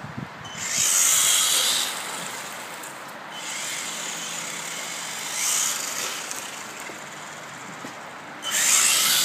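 1/16-scale Traxxas VXL RC cars with brushless motors whining and wet tyres hissing on rain-soaked ground. They surge in three bursts: about a second in, midway and near the end.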